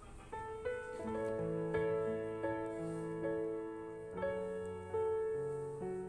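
Slow piano music as a background track: single notes and chords struck about twice a second, each ringing on and fading.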